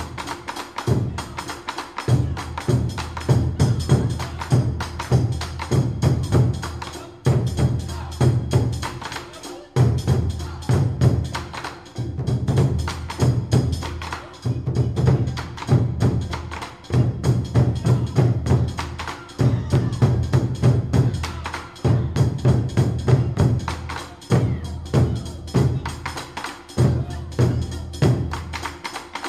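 Percussion-heavy music with a fast, steady beat of clicking strikes over a deep bass line that swells and drops in phrases of a few seconds.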